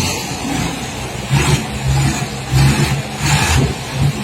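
Truck engine revving in repeated surges, rising and falling about once a second.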